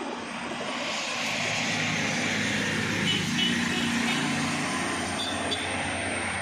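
A motor vehicle passing by: engine and road noise with a low hum that swells over the first few seconds and fades away near the end.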